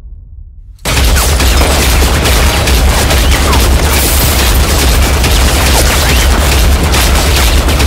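Film sound effect of sustained rapid automatic gunfire, a dense unbroken volley over a heavy low rumble. It starts abruptly a little under a second in.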